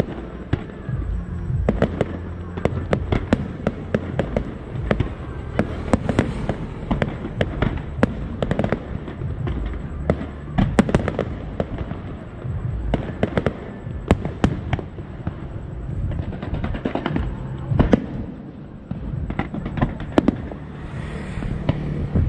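Aerial fireworks shells bursting in a rapid, irregular run of booms and cracks.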